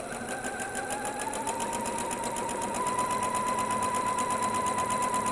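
Electric sewing machine stitching a quilt seam: the motor whine rises in pitch as it speeds up over the first second or so, then holds at a steady speed with a rapid, even clatter of the needle.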